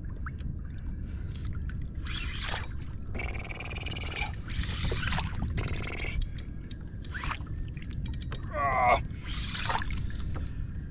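Water splashing and sloshing around a kayak in irregular bursts over a steady low rumble of water and wind. About three-quarters of the way through comes a short vocal cry that falls in pitch, the loudest sound here.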